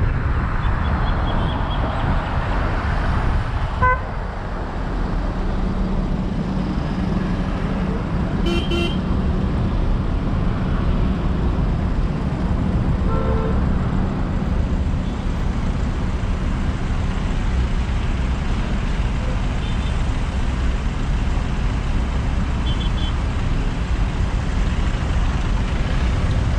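Steady road and engine rumble from a car driving through city traffic, with a few short car horn toots, the clearest about a third of the way in and another near the middle.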